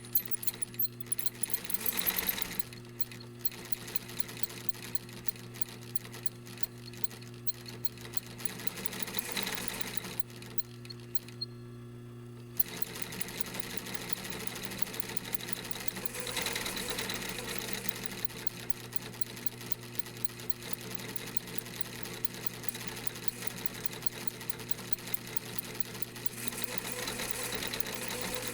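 Industrial sewing machine stitching in fast runs of rapid needle strokes over the steady hum of its motor. The stitching stops for about two seconds just after the middle, leaving the motor humming alone, then starts again with a click.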